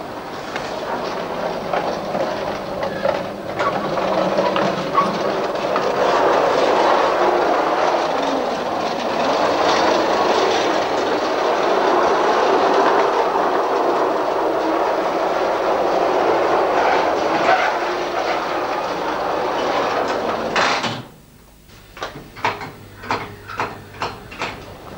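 3/4-inch-scale electric model trams running on their track: a steady rumble of wheels and gearing on the rails. About four seconds from the end the rumble stops abruptly, and a run of sharp clacks follows, about three a second.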